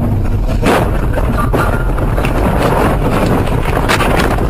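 Car crashing off the road into deep snow, heard from inside the cabin: a loud, steady rumble with a few sharp knocks and thuds, the loudest about four seconds in.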